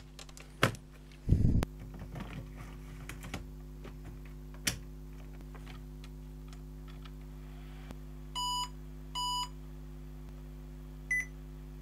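Clicks and a knock as the laptop is handled, then an IBM ThinkPad 600X powering on and giving two short electronic beeps about a second apart at its power-on self-test, followed by a brief higher blip, over a steady low hum.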